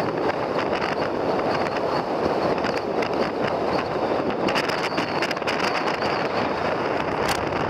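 Steady road and wind noise of a car driving at speed, heard from inside the cabin, with wind buffeting the microphone and a few brief ticks and rattles.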